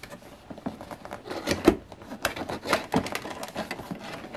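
Hands working open a cardboard figurine box: irregular taps, scrapes and rustles of fingers and nails on the cardboard.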